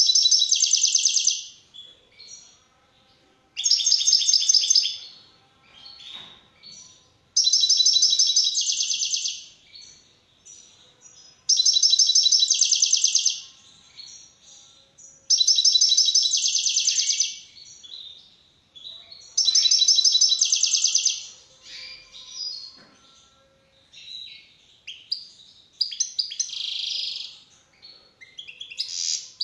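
European goldfinch singing: loud phrases of fast, high trilling come about every four seconds, with softer twittering between them.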